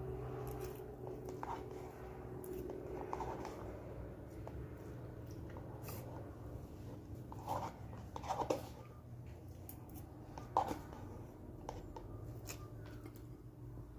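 A person chewing and eating, with scattered small mouth clicks and smacks, a few louder about halfway through. A steady low hum runs underneath.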